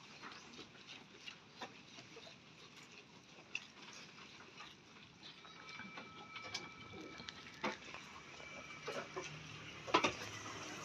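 Jawarandu goats feeding on fresh-cut grass in a wooden trough: scattered rustling of leaves and small clicks of chewing and tugging at the fodder, with a louder knock near the end.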